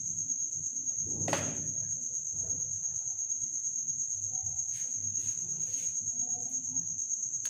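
A cricket trilling steadily in one continuous high-pitched tone, with one sharp knock about a second in.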